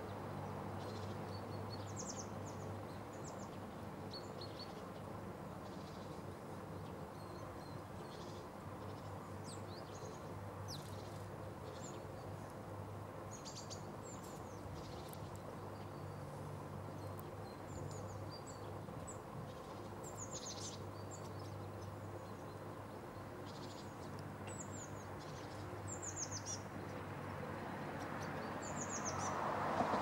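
Small songbirds giving scattered short, high chirps, many of them falling in pitch, over a steady low hum of distant city noise. A rush of noise swells near the end.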